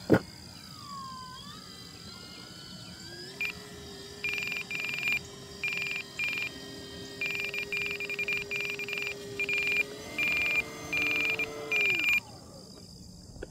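Electronic alarm beeping from an RC transmitter: many short, high beeps in irregular groups, running from a few seconds in until about a second before the end. Under it is a gliding, then steady, whine from the model Cessna 182's electric motor. A sharp click comes right at the start.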